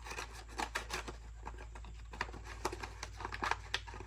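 A new chainsaw chain being unboxed by hand: a run of small clicks, rustles and crinkles from the packaging.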